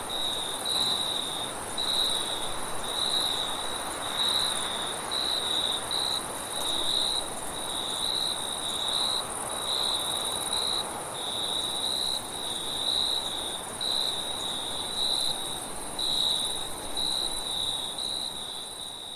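Crickets chirping at night in short, rapidly repeated high-pitched trills at one steady pitch, over a continuous soft rush of wind.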